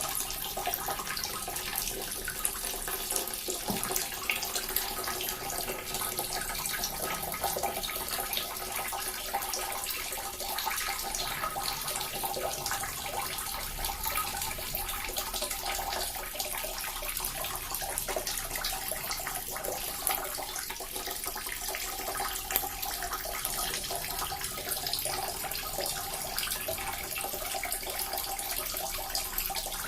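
Small water fountain trickling and splashing steadily, with water falling into a pool.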